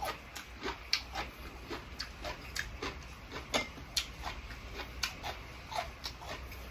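Eating sounds: irregular crisp crunches of chewing raw vegetables, two or three small clicks a second, with light taps of metal chopsticks on a ceramic plate later on.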